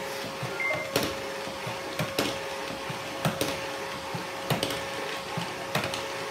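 Neato robot vacuum running with a steady motor whine, broken by sharp clicks about once a second, some in pairs, as it jerks in place. The robot is malfunctioning and reports its bumper stuck.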